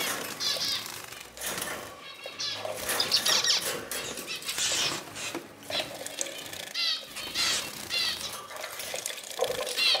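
Zebra finches bathing: water splashing and wing fluttering in the bath boxes, mixed with repeated short, nasal zebra finch calls.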